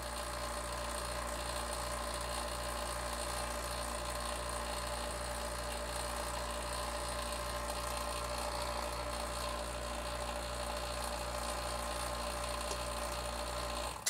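Elitech SVP-7 two-stage, 7 CFM, 3/4 HP HVAC vacuum pump running steadily with its inlet capped and the pump isolated: an even motor-and-pump hum with a regular pulse. It is pulling down to about 50 microns, the quick pull-down that shows the pump is in good order.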